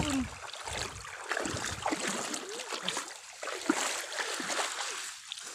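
Water sloshing and splashing in uneven surges as people wade through shallow water, sweeping it for fish.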